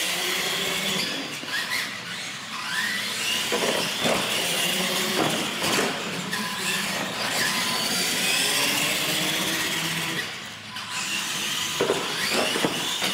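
Electric R/C monster trucks racing: motors and gears whining, the pitch rising and falling with the throttle, easing off briefly about ten seconds in before picking up again.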